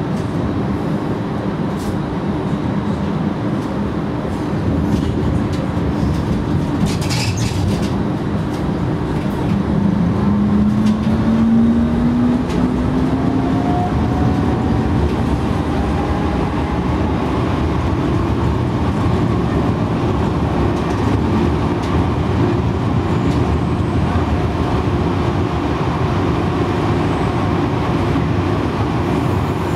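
Light-rail tram running along its track, heard from inside the driver's cab: a steady rumble of wheels on rail, with a few brief clicks about seven seconds in and a whine that rises in pitch around ten seconds in.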